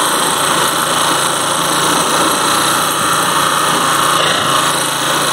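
Small motorcycle engine running very loud and steady under way.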